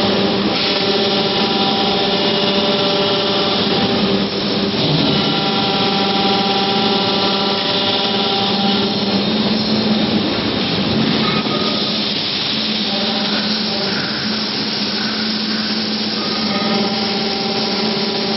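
Biomass aluminium-melting furnace in operation: a loud, steady roar with a droning machine hum running through it.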